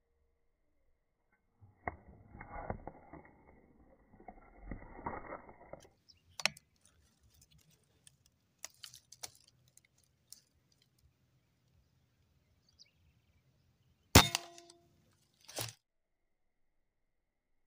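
A PCP air rifle fires, a single sharp metallic crack with a brief ring, about three-quarters of the way in. About a second and a half later comes a shorter metallic clack, typical of the bolt being cycled. Earlier there are a few seconds of rustling handling noise and scattered light clicks.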